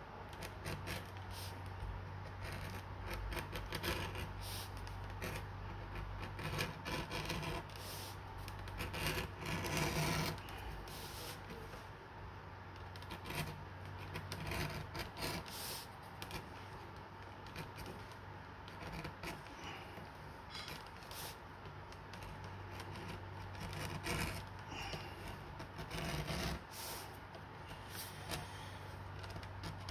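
Keen No. 3 edge beveler scraping along the edge of a vegetable-tanned leather belt strap in repeated irregular strokes, shaving off thin curls of leather, over a low steady hum.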